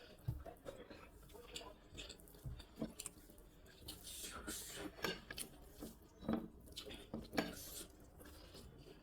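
Eating from a plate by hand: rice, dal and mashed vortas being mixed and eaten, with scattered light clinks and taps against the plate.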